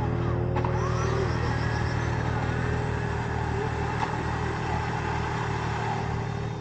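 Off-road 4x4's engine running steadily at low revs, with a few faint rising-and-falling whines above the engine drone.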